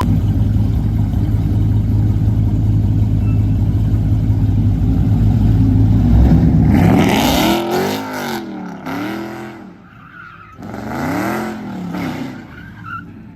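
Dodge Charger Hellcat's supercharged 6.2-litre HEMI V8 held at steady high revs, then revving up and down several times as the rear tyres spin and squeal in a burnout and donuts.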